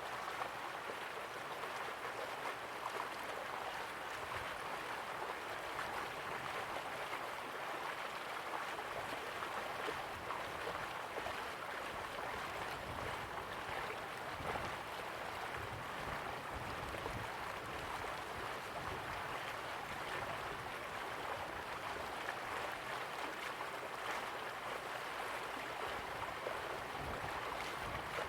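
River water flowing steadily, a continuous even rush and babble.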